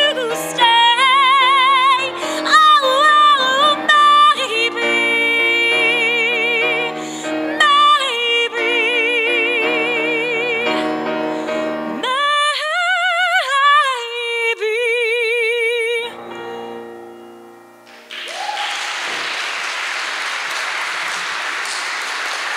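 A woman sings a song with grand piano accompaniment, her voice wavering with a wide vibrato, and ends on a long held note. The piano plays a short quiet close, and the audience applauds for the last few seconds.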